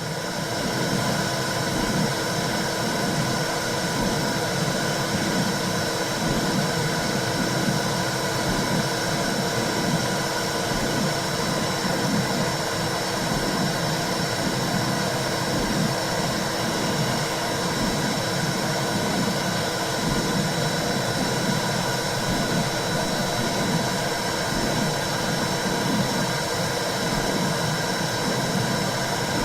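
Womb-sound recording for soothing a baby: a steady whooshing noise with a low, rhythmic pulsing underneath.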